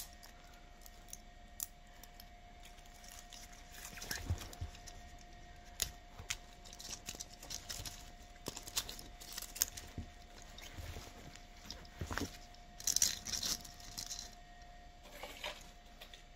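Rustling and crackling of holly and fir foliage, with scattered light clicks, as decorations are handled and pushed into a moss-filled garland ring. The rustling comes in short bursts from about four seconds in and is loudest near the end, over a faint steady hum.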